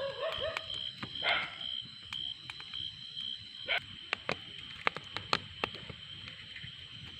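Insects keep up a steady pulsing trill, with scattered sharp clicks and crackles. A pitched animal call trails off about half a second in, and a short noisy burst follows about a second later.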